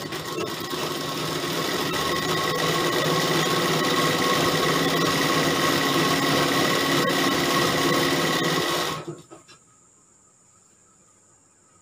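Sewing machine running at a steady speed as it stitches a long straight seam, picking up pace in the first second or two. It stops abruptly about nine seconds in.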